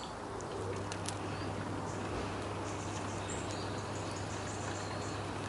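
Outdoor woodland ambience: an even background hiss with a steady low hum that comes in about half a second in, faint high bird calls, and a couple of small clicks about a second in.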